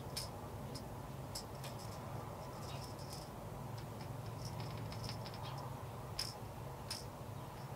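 Faint small ticks, scratches and squeaks of a paintbrush working glitter paint onto a plastic crankbait and dipping into a paint cup, over a steady low hum.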